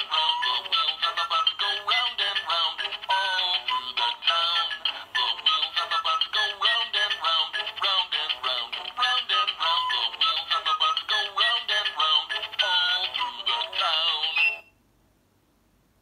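Fisher-Price Barney Silly Hats plush toy singing a song over electronic backing music through its built-in speaker. The song cuts off sharply near the end.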